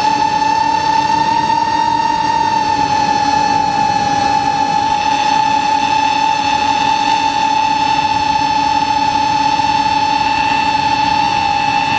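Radio-controlled model airplane's motor and propeller running at a steady high whine, heard from a camera mounted on the plane in flight, with a rush of air beneath the tone; the pitch wavers only slightly.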